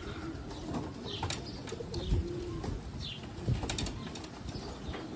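Young racing pigeons cooing softly on a caged landing board, with some wing flutters and a few sharp knocks, notably about two seconds in and again around three and a half seconds.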